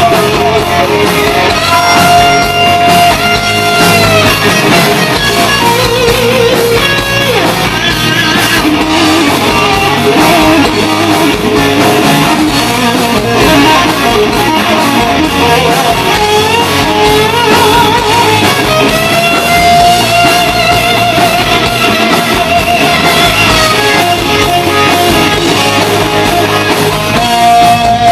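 Live rock band playing loud, led by an electric guitar holding long lead notes with vibrato and bends, over bass and drums.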